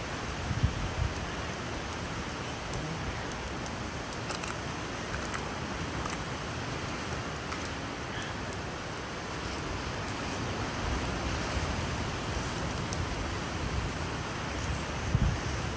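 Steady rushing outdoor noise of wind and distant ocean surf, with a couple of soft low thumps about half a second in and again near the end.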